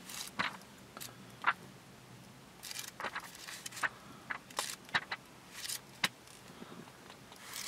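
Pages of a paperback owner's manual being flipped through by hand: irregular paper flicks and rustles.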